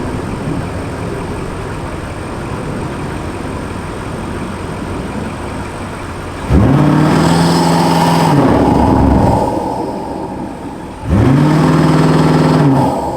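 BMW F90 M5's twin-turbo V8, breathing through Eventuri intake air boxes, cruising and then given two hard full-throttle pulls, about six and eleven seconds in. Each time the engine note climbs sharply, holds high for a couple of seconds, then eases off.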